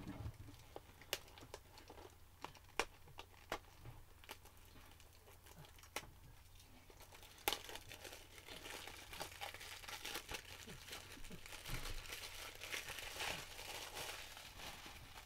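Plastic shrink wrap being picked at and torn off a DVD case. Scattered sharp clicks come first, then steadier crinkling and tearing of the film through the second half.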